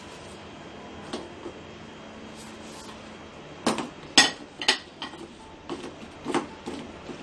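A black plastic slotted spatula knocking and scraping against a stainless steel pan as balushahi are pushed around in sugar syrup. There is one knock about a second in, then a run of sharp knocks in the second half.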